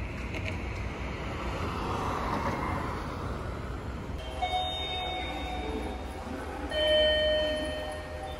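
Train sounds: a steady low rumble, with two ringing chime tones about four seconds in and again near the end, the second one louder.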